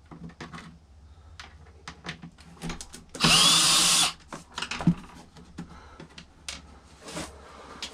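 Power drill running in one short burst of just under a second, about three seconds in, spinning up with a brief rising whine as the karaoke machine's casing is unscrewed. Light clicks and knocks of plastic parts being handled come before and after.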